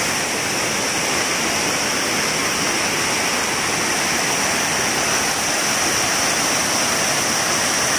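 Waterfall water rushing steadily over rock ledges: an even, continuous rush, with a steady high-pitched drone held above it.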